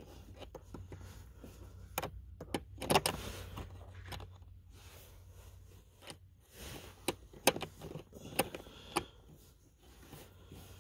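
Irregular metallic clicks and clinks of a socket wrench on a long extension bar turning out a small screw.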